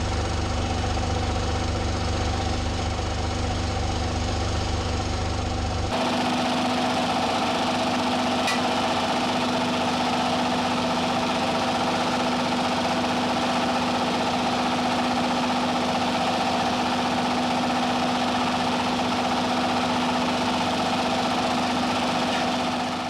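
Machinery running steadily: a motor hum under a loud, even hiss. The sound changes abruptly to a different steady machine noise about six seconds in.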